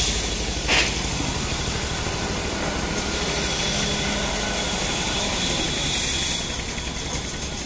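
Steady machinery running, a low pulsing rumble with a hiss over it, and one sharp knock about a second in.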